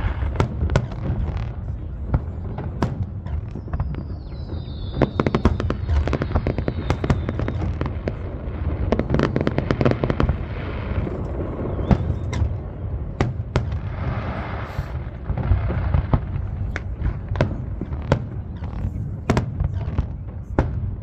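Fireworks display: continuous low booms with many sharp cracks, thickening into dense crackling bursts several times. A thin whistle falls in pitch about four seconds in. Recorded on a phone microphone.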